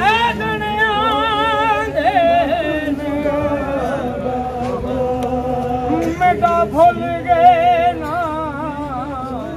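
A male voice chanting a Punjabi noha, a mourning lament, unaccompanied. It holds long notes with a wide, wavering vibrato and moves to a new pitch every second or two.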